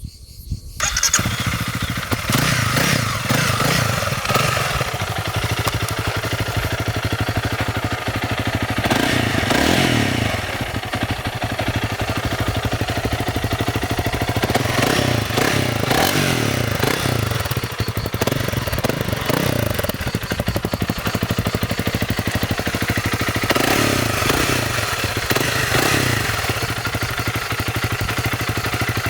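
Honda CRF300L's single-cylinder four-stroke engine through its stock exhaust, starting up about a second in, then idling with several throttle blips that rise and fall.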